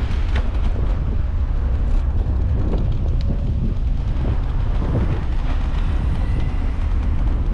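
Steady low rumble of wind buffeting the microphone on a moving e-scooter, with the road noise of the ride underneath.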